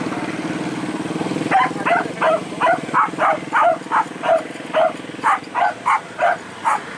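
A hunting dog barks in a fast, even run, about three barks a second, starting about a second and a half in. Under it a motorcycle engine idles steadily.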